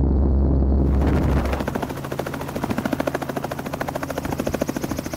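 Light helicopter with a two-bladed main rotor. For the first second and a half it is a heavy steady drone heard from inside the cabin in flight. After that it is the helicopter running on the ground, the rotor beating in a fast even chop of roughly ten beats a second.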